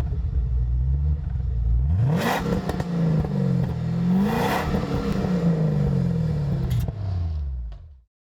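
V8 performance car engine revving hard. The note climbs and falls twice, with a rush of noise at each peak, then stops abruptly.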